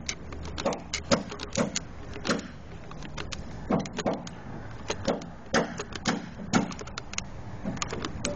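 Irregular sharp clicks and knocks, about one or two a second, from hand work on epoxy anchor bolts: tools and metal parts handled as the epoxy is dispensed and the bolts set. A steady low hum runs underneath.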